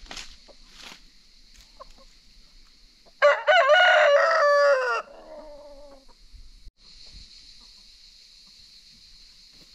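A rooster crowing once about three seconds in, a loud call of about two seconds whose pitch drops as it fades. A steady high hiss runs underneath.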